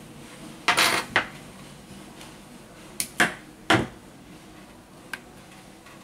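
Handling noises from fitting double-sided tape to the edges of a tablet's LCD display module: a short scratchy rasp about a second in, then a handful of sharp clicks and taps between about three and four seconds in, and one faint click near the end.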